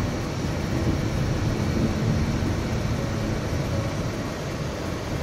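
Steady road and engine noise inside a moving car's cabin, the tyres running over a snow-covered road, with a low rumble and a faint hum.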